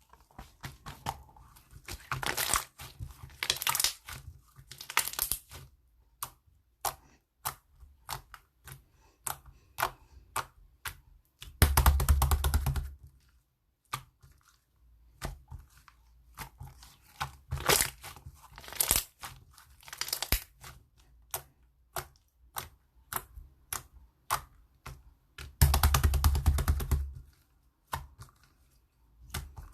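Fried-egg slime, white slime topped with a yellow clay-like layer, being pressed, folded and stretched by hand: a stream of sharp crackling clicks and pops, with three longer stretches of dense crackling, about two seconds in, about twelve seconds in and near the end.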